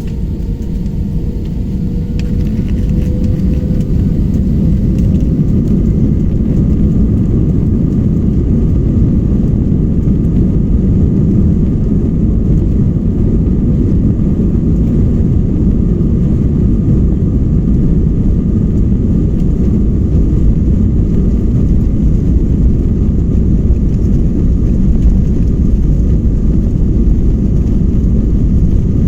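Jet airliner engines heard from inside the cabin, spooling up to takeoff thrust. A whine rises in pitch over the first few seconds, then gives way to a steady, loud, low rumble.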